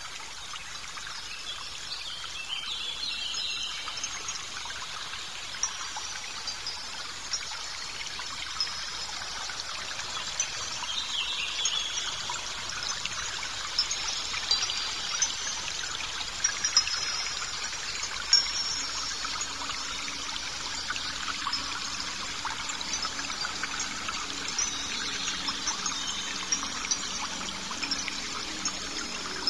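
Heavy-duty long-arm lockstitch sewing machine running steadily, a fast even clatter with faint high squeaks, as it stitches a lifting loop onto a woven bulk bag.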